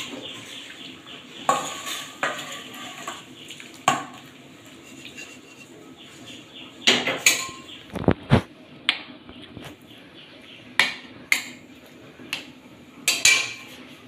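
Metal kadai and spatula clanking and scraping as the finished curry is served out into a steel bowl: scattered sharp clanks, with a few dull knocks about eight seconds in and a loud pair of clanks near the end.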